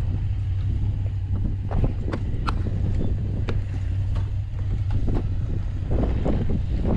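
Strong wind buffeting the microphone of an action camera on a moving road bike: a steady low rumble, with scattered sharp clicks throughout.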